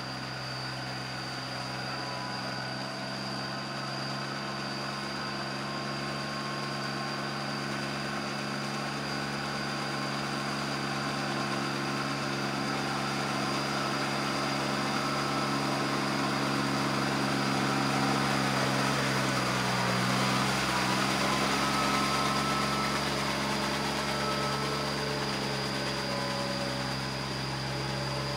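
Small diesel tractor engine running steadily under load as it drags a leveling board through a flooded rice paddy on steel cage wheels. The engine pitch sags briefly about two thirds of the way through, then recovers.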